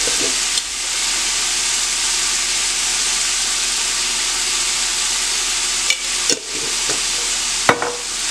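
Chicken pieces in chilli masala sizzling steadily in a cast-iron skillet, with a few sharp knocks of a wooden spoon against the pan in the second half.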